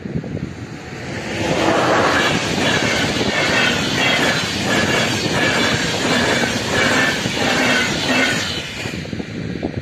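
A RegioJet passenger train passing the level crossing at speed: a rushing rumble builds about a second in, carries a regular clatter of wheels about twice a second as the cars go by, and fades near the end.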